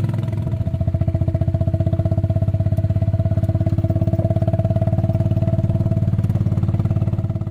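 Small gasoline golf-cart engine running at a steady speed, with an even, rapid pulsing beat.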